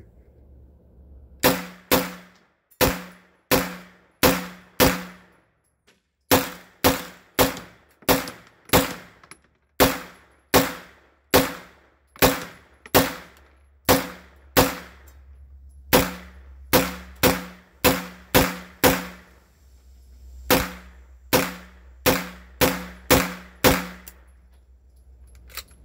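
A PTR 9CT, a 9mm MP5-clone pistol, fires semi-automatic at a fast, steady pace of about two shots a second, in several strings with brief pauses, around thirty-five shots in all. Each shot has a short ringing echo. The gun is running without stoppages and, in the shooter's words, is starting to break in and getting smoother.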